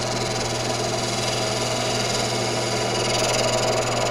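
Wood lathe running with a steady hum while a roughing gouge takes light cuts on the spinning blank, rounding it.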